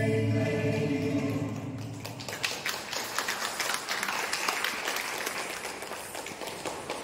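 Choral music ends on a held chord about two seconds in, and an audience breaks into applause that thins out toward the end.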